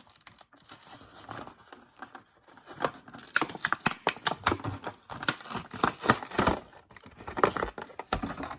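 Packaging being opened by hand: irregular crinkling, tearing and rustling with small clicks and scrapes, busiest in the second half.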